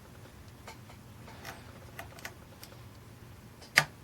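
Lock pick working the pin stacks of a six-pin Yale cabinet lock: faint scattered ticks of the pick against the pins, then one sharp, louder click near the end.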